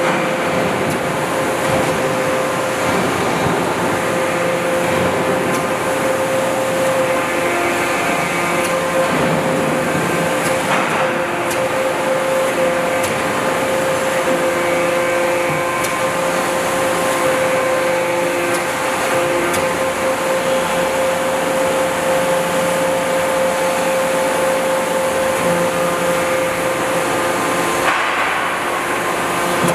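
Hydraulic static pile driver's hydraulic system running with a steady whine while its long and short walking boats are test-operated, with a couple of brief knocks.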